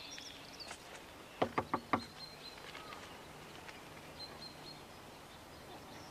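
Four quick knocks on a door, about one and a half seconds in, over quiet outdoor background with a few faint bird chirps.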